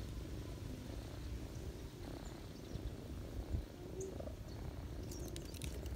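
Cats purring in a low, steady rumble while the kittens nurse at their mother. A short run of faint clicks about five seconds in.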